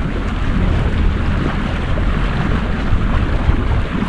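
Motor boat under way: a steady, loud mix of engine noise and wind buffeting the microphone.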